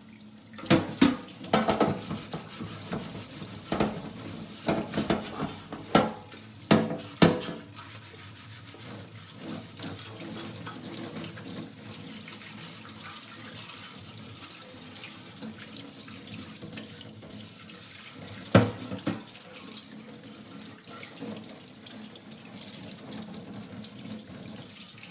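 Kitchen tap running steadily into a stainless steel sink while air fryer baskets are scrubbed with a sponge. The baskets knock against the sink many times in the first eight seconds and once more about two-thirds of the way through.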